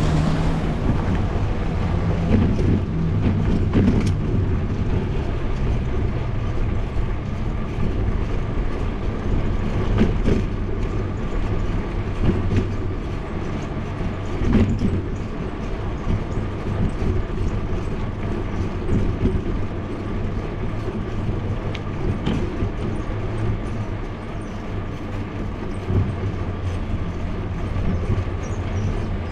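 Bicycle ride heard from a bike-mounted action camera: a steady rumble of tyres on the paved road, with frequent short rattles and knocks as the bike goes over bumps.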